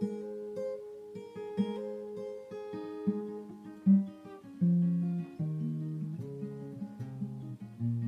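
Acoustic guitar with a capo, picked note by note in a flowing accompaniment pattern, with no voice. About halfway through, the bass notes step down one after another.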